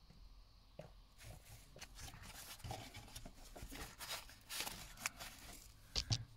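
Faint rustling and scattered light clicks of close-up handling, with two sharper clicks close together near the end.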